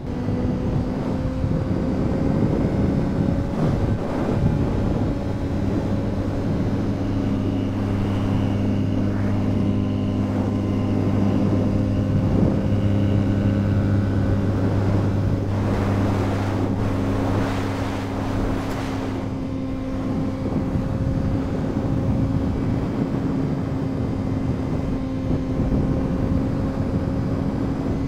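Honda CBR600RR's inline-four engine running at steady cruising revs, with wind rushing over the microphone. About two-thirds through, a few seconds of louder rushing noise rise over it.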